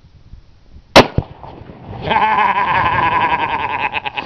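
A .308 rifle shot about a second in, followed a split second later by the crack of the half-pound tannerite charge detonating in the pumpkin at about 60 yards. From about two seconds in, a high voice pulses quickly for about two seconds.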